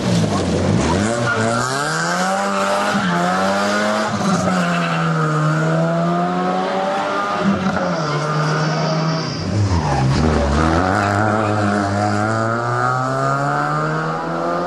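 Rally car engine at full throttle, pitch climbing steadily and falling sharply at each gear change, several times over as the car accelerates away.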